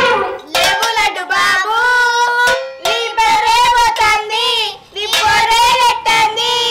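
High-pitched singing voice, its melody wavering up and down in short phrases, with a few sharp clicks among them.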